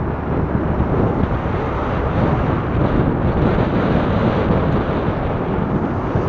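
Wind buffeting the microphone of a camera mounted on a moving recumbent bicycle: a loud, steady rumbling rush with no separate events.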